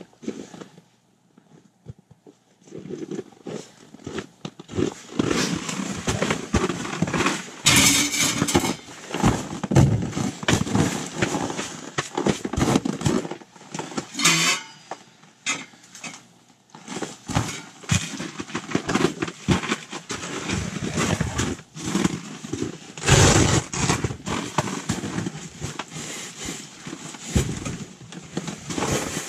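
Irregular knocks, clatters and rustling from close by as a stainless-steel wood stove and its flue pipe are handled and set up, with a few louder scraping, rustling bursts.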